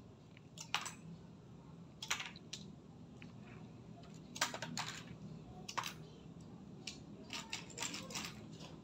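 Small pieces of cut-up CD clicking against each other and the table as they are picked up and set down: scattered light clicks, some single and some in quick clusters.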